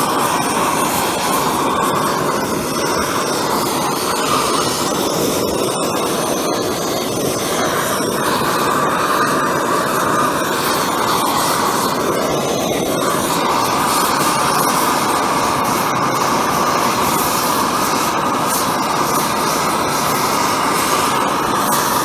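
Oxyhydrogen (water-electrolysis) torch flame hissing steadily as it heats a boiler tube coil for brazing. The flame is running cold, which the builder puts down to too little current and too little electrolyte in the torch.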